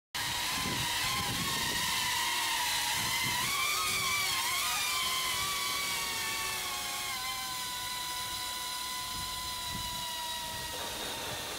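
Drone propellers whining in flight, the pitch wavering as the drone manoeuvres onto a tree branch. The whine then settles and slowly eases lower and quieter as thrust is reduced for perching.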